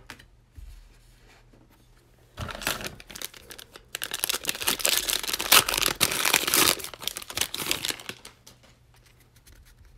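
Donruss basketball card pack's foil wrapper crinkling and tearing as the pack is pulled from the box and ripped open. The crackling starts about two and a half seconds in, is loudest in the middle and dies away near the end.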